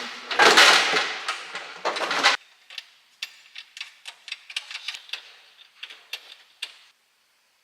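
Handling of metal parts: a loud scraping clatter for the first couple of seconds stops abruptly, then light, irregular clicks and taps follow, about two or three a second, ending about seven seconds in.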